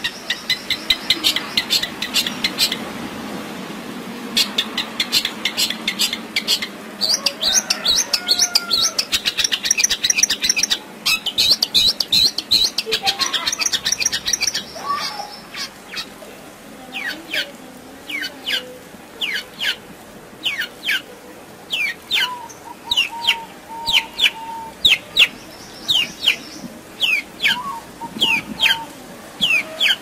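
Long-tailed shrike (cendet) singing a continuous, varied song full of mimicked calls. For about the first fifteen seconds it is a dense run of rapid high chirps and trills. After that come spaced, sharp downward-sweeping notes mixed with a few lower whistles.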